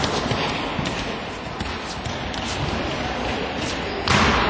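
Children's indoor football play on a sports-hall floor: a football kicked and bouncing in scattered thuds over the noise of running feet, with a louder sudden burst about four seconds in.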